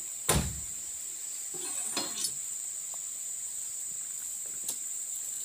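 Insect chorus shrilling steadily on one high note, with a single sharp knock about a third of a second in and a few faint clinks and rustles around two seconds in.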